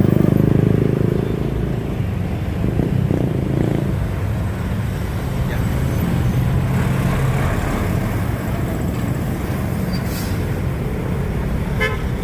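Heavy truck's diesel engine running as it drives past, loudest at the start, followed by steady roadway traffic noise.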